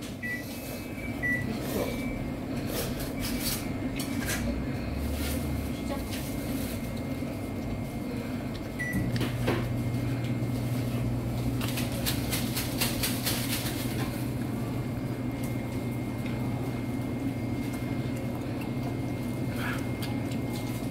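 Instant cup ramen noodles being slurped and chewed in short noisy bursts, bunched together about ten seconds in, over a steady low appliance hum that grows louder from about nine seconds in.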